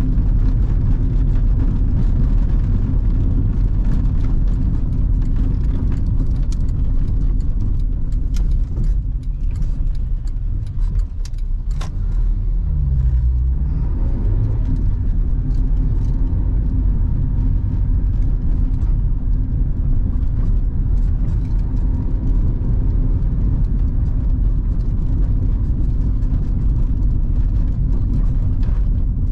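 1997 Honda Civic's 1.4-litre four-cylinder petrol engine running at low speed, heard inside the cabin, with tyres rumbling and clattering over cobblestones. Partway through, the engine note drops and then climbs again.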